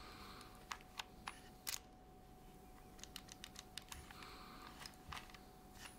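Faint, scattered small clicks of a Soviet Zorki-C rangefinder camera being handled. A few single clicks come in the first two seconds, and a quick run of light ticks follows around three to four seconds in.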